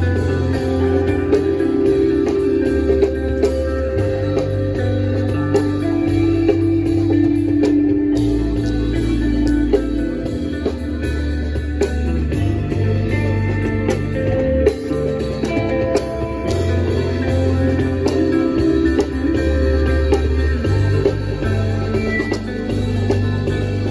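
Live band playing a song, with electric guitar to the fore and a low bass line that changes note every couple of seconds.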